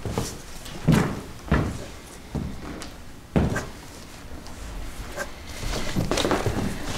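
A few sharp thuds and knocks, the loudest about one second and three and a half seconds in, then footsteps and rustling near the end as an actor walks back on to the stage carrying a folder.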